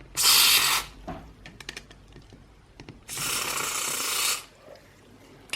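Aerosol can of fast-drying contact cleaner sprayed in two hissing bursts, a short one near the start and a longer one about three seconds in, with light clicks in between.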